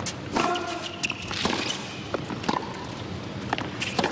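Tennis rally on a hard court: sharp racket-on-ball strikes about once a second, near and far, with shoes squeaking on the court between shots.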